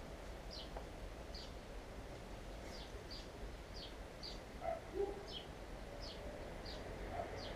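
A small bird repeating a short, high, falling chirp about every half second to second, with a couple of lower notes about five seconds in, over a faint low background rumble.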